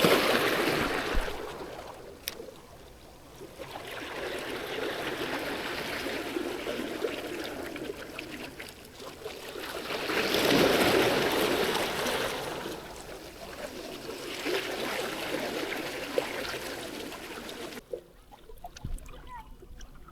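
Sea waves washing onto the shore, swelling and fading in several surges, then cutting off suddenly near the end.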